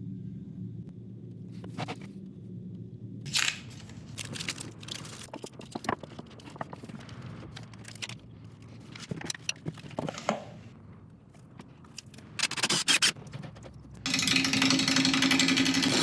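Workshop sounds: wood pieces being handled, scraping and clicking against each other and the bench, over a steady low machine hum. About fourteen seconds in, a louder power tool starts running.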